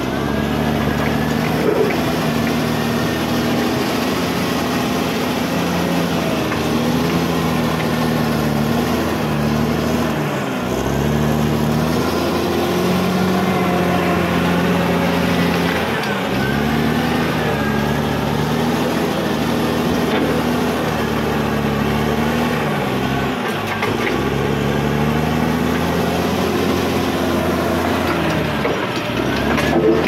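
Caterpillar D6R XL bulldozer's diesel engine running hard while the blade pushes rocky soil. Its pitch sags and recovers about four times as the load comes on and eases off.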